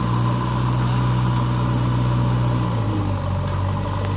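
JCB backhoe loader's diesel engine running steadily while the repaired machine is tested under load, with a faint steady whine above it. The engine note drops slightly about three seconds in.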